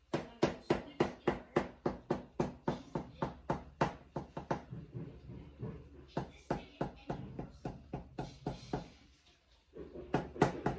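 A kitchen knife chopping straight down through a cake layer, its tip knocking the cake board about three to four times a second, in two runs with a short break in the middle and a cluster of knocks near the end.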